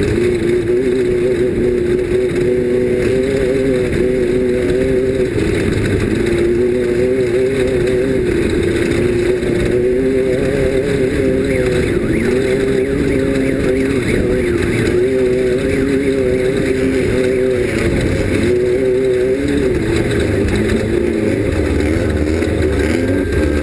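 Off-road race vehicle's engine running hard at high revs under racing load, its pitch wavering up and down with the throttle and dipping briefly a few times.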